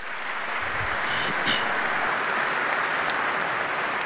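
Audience applauding: many people clapping steadily, the applause building over the first second.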